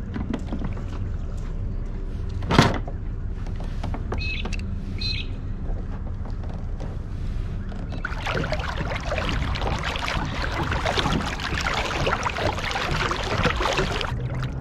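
Small boat under way on the water: a motor's steady low hum with water rushing past, growing into a dense hiss for the last several seconds before cutting off sharply. A single sharp knock sounds about two and a half seconds in.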